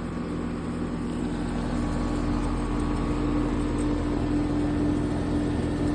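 Steady mechanical hum of running machinery: a low rumble with a steady tone over it, growing slightly louder after about two seconds.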